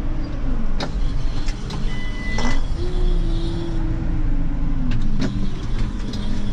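Tractor engine running, heard from inside the cab, its revs rising and falling several times as it manoeuvres, with a few sharp clicks and knocks.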